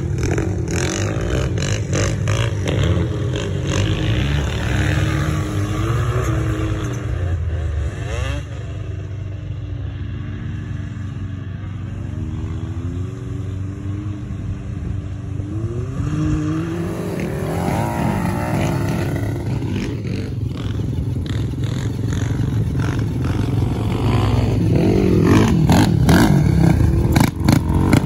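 ATV (quad) engine running under way, its pitch rising and falling as the throttle opens and closes, with knocks and rattles from the ride. It gets louder near the end.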